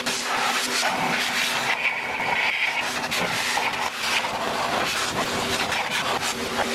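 Master Blaster car air dryer blowing air through its hose nozzle onto a wet wheel and tire: a loud, steady rush of air over a motor hum, drying the wheel. The rush shifts as the nozzle is moved around the spokes.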